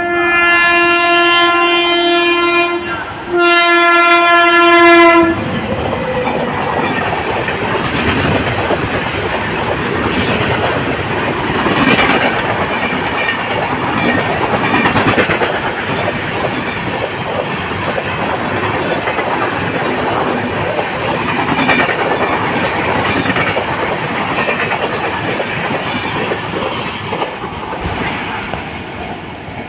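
Indian Railways electric locomotive horn sounding two long blasts, with a short break about 3 seconds in, then a passenger train rushing past at speed, its wheels clattering over the rail joints. The passing noise fades near the end.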